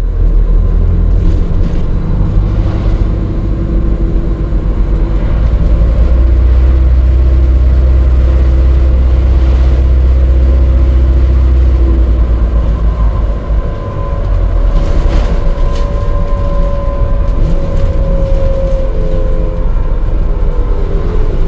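Alexander Dennis Enviro400 hybrid bus heard from inside the lower deck while driving: a heavy steady rumble from the drivetrain and road, easing a little after about twelve seconds. A whine from the axles and drive comes in over the second half and slowly falls in pitch over the last few seconds as the bus slows, typical of regenerative braking on this hybrid.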